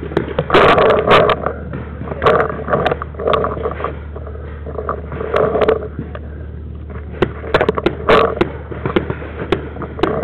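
Irregular rubbing and knocking noise on a camera strapped to a paintball marker as it is carried and handled, with scattered sharp clicks.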